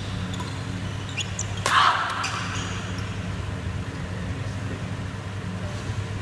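Badminton rally on an indoor court: sharp racket hits and shoe squeaks on the court floor, with the loudest hit just under two seconds in, after which play stops. A steady low hum runs underneath.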